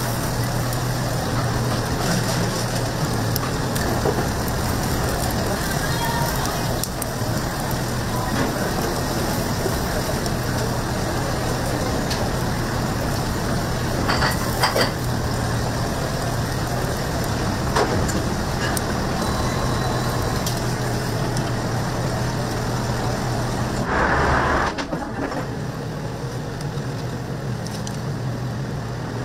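Scallops in their shells sizzling on a charcoal grill over a constant low hum, with a few sharp clicks from the metal tongs. Near the end there is a short louder burst, after which the sound shifts and is slightly quieter.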